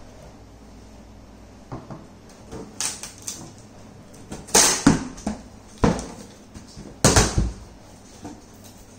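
Cardboard carton being opened by hand: a string of separate sharp rips, scrapes and thumps as the flaps are pulled free and folded back, the loudest about halfway through and again about seven seconds in.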